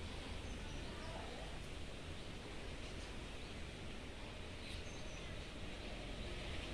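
Steady outdoor garden ambience: a low rumble and hiss, with two faint, short, high bird chirps, one near the start and one about two-thirds of the way through.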